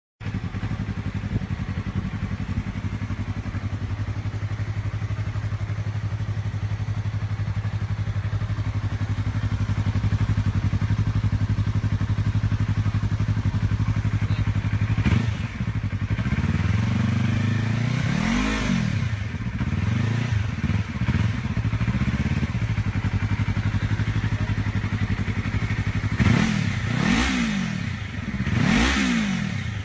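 Motorcycle engine idling steadily, then revved in a series of throttle blips from about halfway through, the pitch rising and falling with each; several more quick revs near the end.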